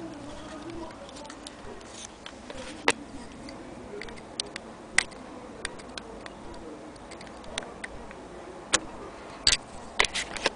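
Sharp metallic clicks at irregular intervals from the mechanism of an antique Vesta hand-crank sewing machine as its parts are handled, with a cluster of clicks near the end.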